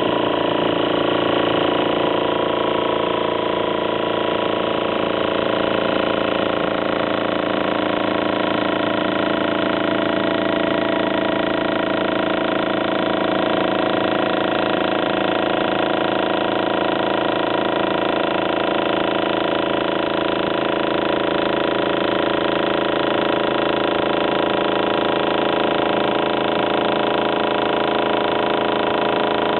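Makita MAC600 air compressor's motor and pump running steadily, with an even, unchanging pitch.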